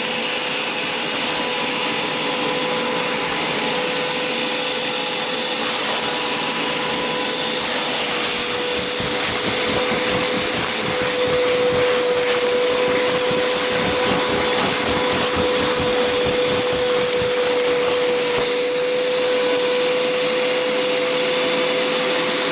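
Hoover Power Scrub Deluxe carpet cleaner running steadily, its motor giving a constant whine under the rush of suction through the upholstery tool as it draws dirty water out of couch fabric. It gets slightly louder about halfway through.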